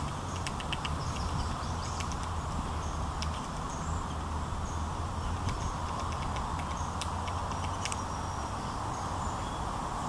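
Steady low outdoor rumble with scattered short, sharp clicks, clustered near the start and again about seven to eight seconds in, and a few faint high bird chips.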